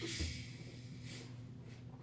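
Quiet eating noises from a man chewing a large sub sandwich: a short breath through the nose at the start, then soft chewing sounds.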